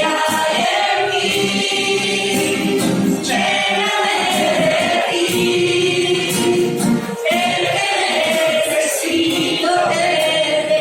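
Christian worship song sung by a choir in long held phrases, with light percussion keeping a regular beat.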